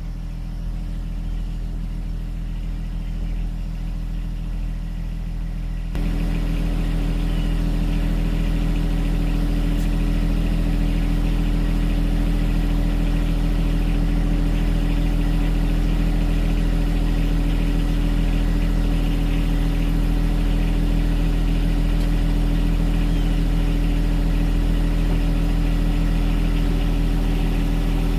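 Lawn mower engine running steadily, its hum stepping up louder about six seconds in and then holding even.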